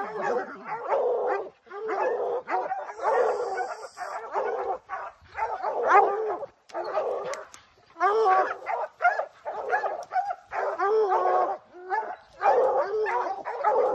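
Bear hounds baying and barking almost without pause, calls following one another and overlapping, typical of hounds baying at a treed bear.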